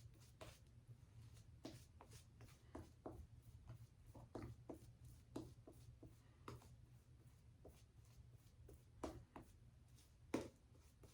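Faint wet-shaving sounds: short, irregular scratchy strokes on lathered skin, a couple each second, over a low steady hum.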